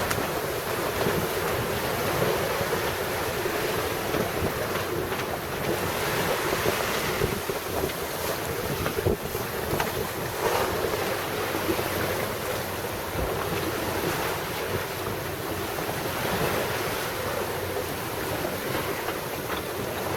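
Wind buffeting the microphone over the rush and slosh of sea water around a small sailboat under way in a swell, rising and falling in slow surges every few seconds.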